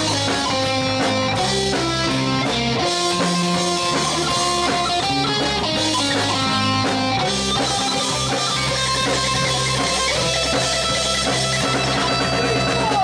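Live amplified rock band playing an instrumental passage: electric guitar and bass guitar over a drum kit with a steady beat.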